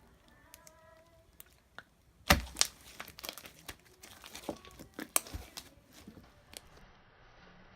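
Slime being squeezed and pulled apart, with crackling, popping clicks. It starts about two seconds in with a sharp pop, then goes on in irregular clicks for several seconds.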